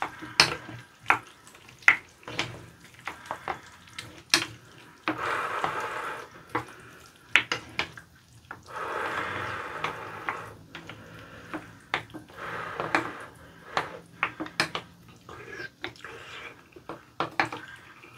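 Spoons scraping and clicking against ceramic bowls as soupy curry rice is stirred and scooped, with stretches of wet eating sounds.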